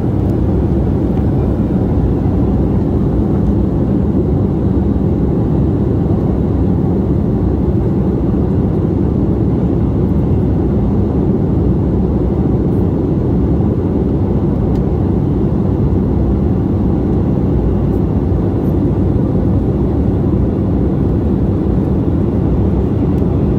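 Steady low rumble of an airliner's cabin noise in cruise flight, engines and airflow past the fuselage heard from inside the cabin at a window seat, unchanging throughout.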